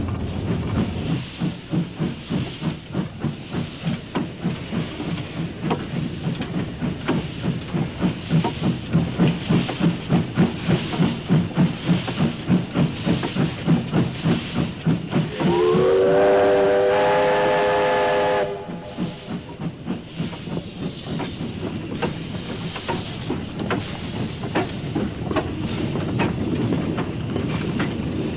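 Steam locomotive working, its exhaust beating about twice a second over a hiss of steam. About halfway its whistle sounds for some three seconds, a chord of several tones that rises in and then cuts off sharply, and the engine then runs on with a steadier hiss.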